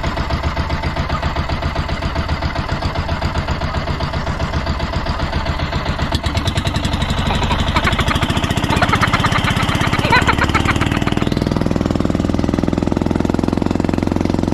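Bangka (outrigger motorboat) engine running with an even chugging pulse; about eleven seconds in its note changes and becomes smoother and steadier.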